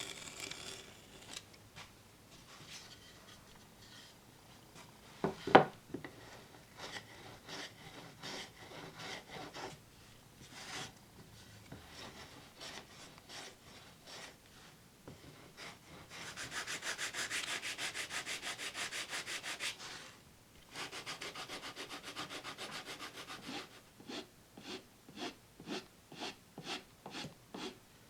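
Repeated hand-worked rubbing strokes on a wooden workpiece, in bursts. There is a single sharp knock about five seconds in, a fast, even run of strokes around the middle, and slower separate strokes near the end.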